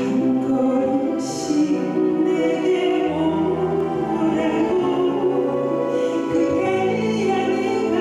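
A woman singing a Korean Christian worship song into a microphone over instrumental accompaniment.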